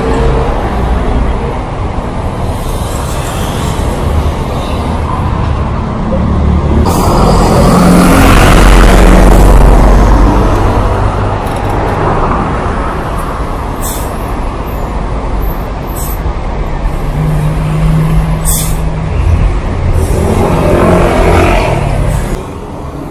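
Heavy city traffic at a bus stop: buses and cars pass with a steady engine and tyre noise. A heavy vehicle passes with a loud low rumble about eight seconds in, and a few short hisses from bus air brakes come in the middle.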